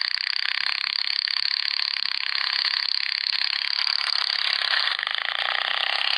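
A vehicle engine running steadily as it drives along, heard as a harsh, thin buzz with no deep low end.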